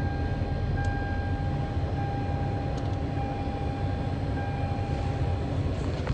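Car engine running with a steady low rumble and a thin, steady whine that stops shortly before the end.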